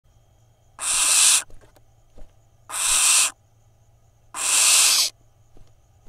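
Barn owl giving three harsh hissing screeches, each under a second long, about a second and a half apart, with a couple of faint knocks in between.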